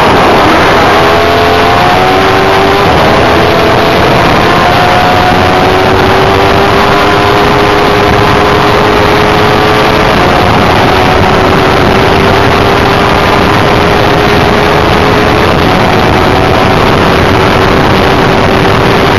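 Single-seater race car's engine running hard at speed, picked up by an onboard camera, with heavy wind and road noise. Its pitch dips right at the start, climbs over the next few seconds, then holds almost steady.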